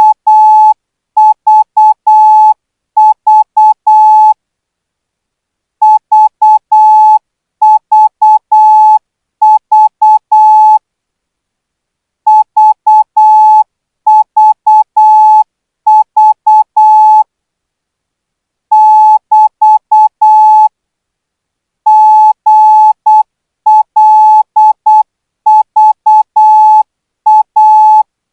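Morse code practice signal at 12 words per minute: a single steady-pitched beep keyed on and off in dots and dashes. The characters come in clusters, with a pause of about a second and a half after every three or four clusters.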